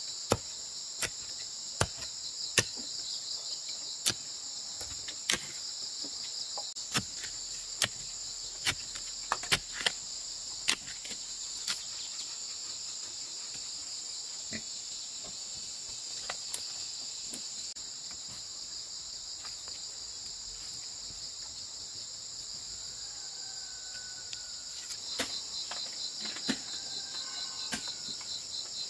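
Long-handled digging tool chopping into packed earth, a sharp knock about once a second for the first dozen seconds, then only now and again. Under it, a steady high chorus of insects.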